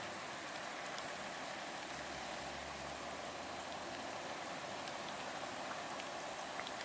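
Steady rain falling on wet pavement and vehicles, an even hiss.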